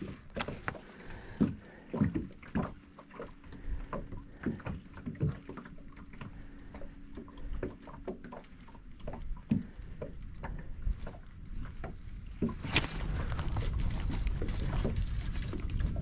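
Scattered light knocks and clicks on a small fishing boat, with water lapping at the hull. About three-quarters of the way through, a low rumble sets in and grows louder.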